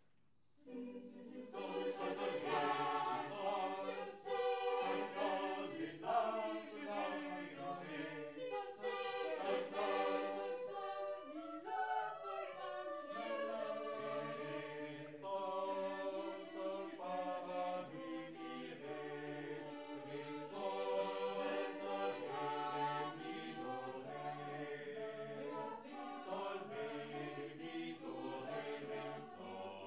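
A small vocal ensemble singing a cappella in several parts, the voices holding and changing notes together. The singing comes in about a second in.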